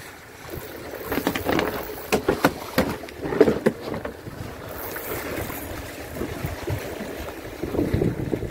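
Sea and wind washing against a small fishing boat's hull, with a cluster of irregular knocks and thumps in the first few seconds.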